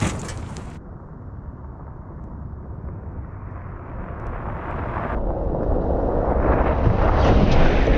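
Nissan Armada's 5.6-litre V8 SUV driving toward the microphone on a rough dirt track. Engine and tyre noise grow steadily louder as it approaches.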